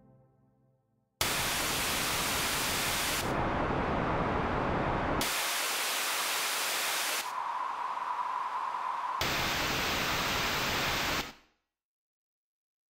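Synthesized random noise played as five 2-second segments back to back, each passed through a different second-order Butterworth filter. First the unfiltered white-noise reference, then low-pass (a dull hiss with the top cut), then high-pass (a thin hiss with the bottom cut), then band-pass with a narrow band of sound in the middle, then band-reject, which sounds close to the full noise.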